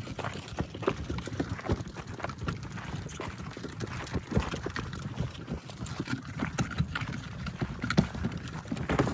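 Footsteps of people walking on a dirt track, an irregular run of short steps.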